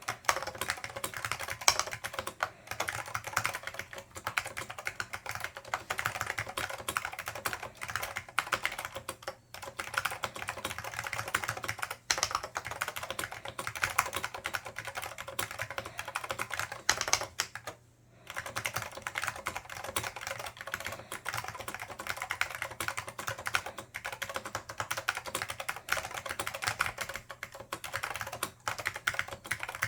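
Continuous fast typing on a Dell AT101 keyboard with Alps SKCM Black switches, lightly lubed, and Alps doubleshot keycaps: a dense stream of key clicks, broken by brief pauses about a third of the way in, around 12 seconds in, and for a moment a little past halfway.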